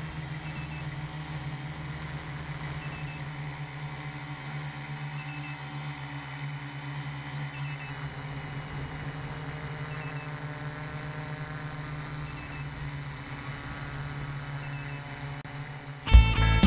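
Quadcopter's electric motors and propellers humming steadily, picked up on board the craft. A loud guitar song cuts in near the end.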